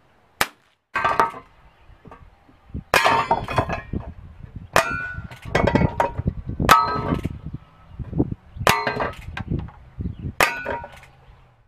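Shots from a Colt Peacemaker CO2 pellet revolver replica, and tin cans on a wooden barrel top clanging as the pellets hit them. There are about seven sharp metallic hits, one every one and a half to two seconds, each ringing briefly, and the struck cans rattle as they tip over.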